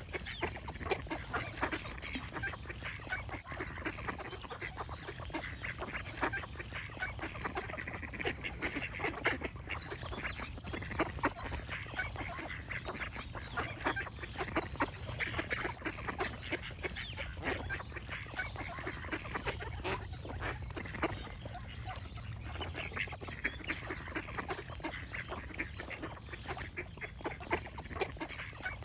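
A flock of ducks quacking and honking continuously, many short calls overlapping in a dense chatter, over a steady low rumble.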